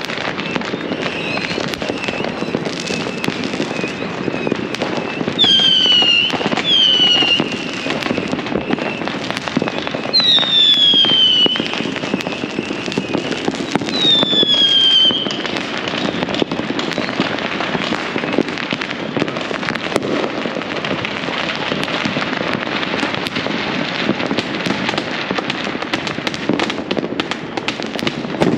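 Many fireworks and firecrackers going off at once across a neighbourhood: a continuous crackle of small bangs over a low rumble. Several shrill whistles, each falling in pitch over about a second, cut through between about five and fifteen seconds in.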